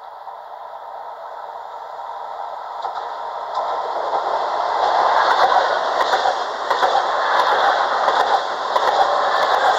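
Italo AGV 575 high-speed electric train running past the platform. Its rush of wheel and running noise swells over the first five seconds as it draws near, then holds loud, with sharp ticks from the wheels on the track.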